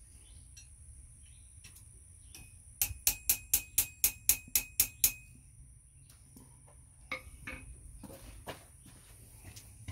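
Blacksmith's hammer striking hot steel on an anvil: about ten quick ringing blows, about four a second, that stop suddenly. A few lighter clinks follow near the end.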